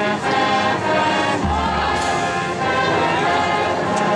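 High school marching band playing slow, held brass chords, with a deep bass note entering about a second and a half in and dropping out near the end.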